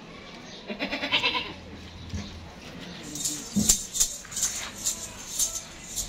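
A goat bleats briefly about a second in. From about halfway, a rhythmic high rattle like a shaker sounds roughly twice a second.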